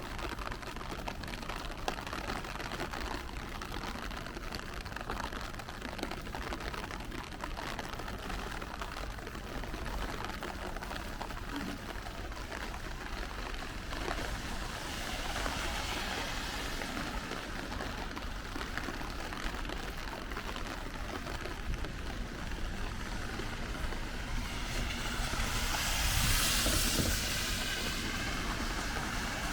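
Rainy street ambience: a steady hiss of rain and wet pavement. A vehicle passes on the wet road near the end, its tyres hissing as it swells and fades.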